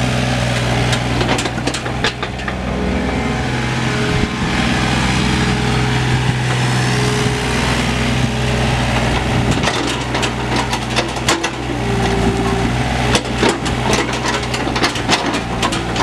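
The Yanmar 3TNV88 three-cylinder diesel of a Takeuchi TB135 compact excavator running steadily while the boom, arm and bucket are worked. Many sharp clanks and knocks come from the machine, more of them in the second half, and a higher steady tone comes and goes a few times.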